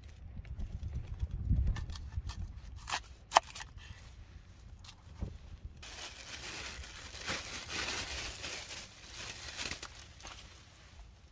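A knife slicing a red onion on a bamboo chopping board, with a few sharp clicks as the blade meets the board, one much louder. About halfway through, a plastic bag rustling and crinkling for several seconds.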